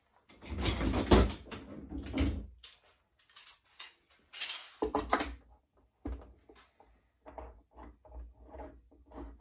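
A long steel bar clamp being handled and set across a glued-up wooden blank. A loud metallic clatter comes about a second in. A further knock follows around the middle, then a run of short clicks and knocks as the clamp is seated and its screw handle tightened.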